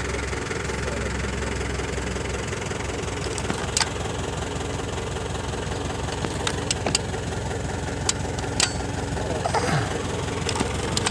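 An engine running steadily, with several sharp clicks in the middle and a short falling tone near the end.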